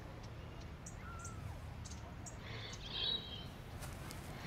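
Outdoor ambience: a steady low background hum with a few short bird chirps, the loudest about three seconds in.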